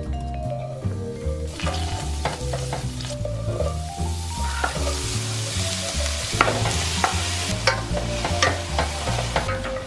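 Chopped garlic, green onion, onion and bell peppers sizzling in olive oil in a stainless steel skillet, stirred with sharp scrapes and taps against the pan. The sizzle starts about a second and a half in and gets louder about three seconds in. Background music with a bass line plays underneath.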